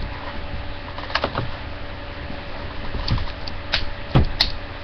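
A few scattered clicks and light knocks, two close together loudest near the end, over a steady low electrical hum, typical of handling at a computer desk.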